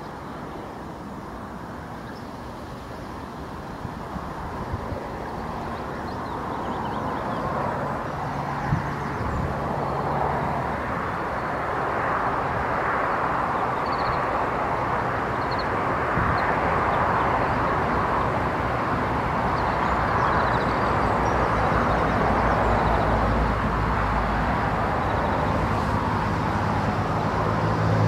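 Rumble of distant motor vehicle noise with a low engine hum. It grows steadily louder over the first dozen seconds and then holds steady. A few faint, short, high chirps come through around the middle.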